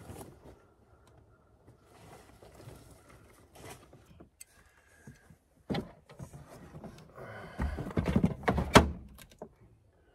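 Knocks and clattering of gear being handled in the back of a truck camper: a sharp click about halfway, then a burst of thuds and rattling near the end.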